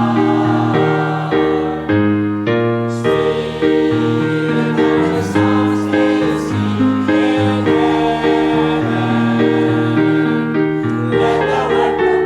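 A choir singing a gospel hymn with piano accompaniment, moving through held chords that change every half second to second.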